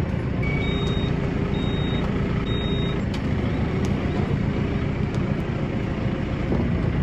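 Telehandler's diesel engine running steadily under load as it drags a stuck electric forklift across gravel. Four short high beeps sound in the first three seconds.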